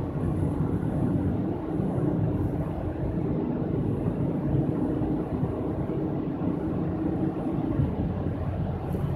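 Steady road and engine noise heard from inside a car cabin while driving through a road tunnel: a low, even rumble with no breaks.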